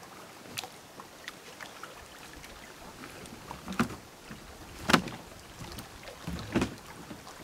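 Scattered clicks and knocks of a kayak spray skirt being pulled and pressed onto the cockpit rim, with a few sharper knocks on the hull, the loudest about five seconds in.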